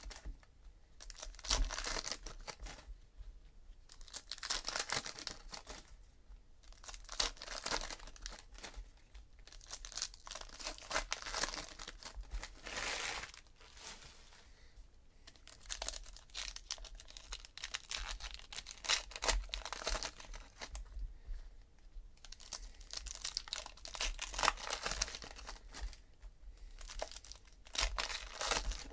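Trading-card packs being torn open and their wrappers crinkled by hand, in irregular bursts of tearing and crackling with short quiet gaps between.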